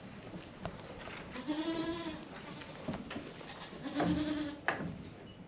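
Nigerian Dwarf goats bleating, two long wavering calls about a second and a half and four seconds in, with a short cry after the second: hungry goats calling to be fed.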